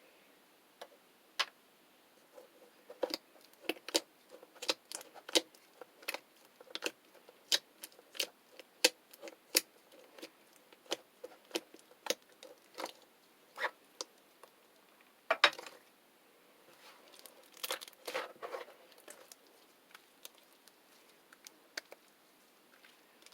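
Slime being played with by hand: irregular sharp clicks and pops, one or two a second, with two denser, longer squishy bursts about two-thirds of the way through.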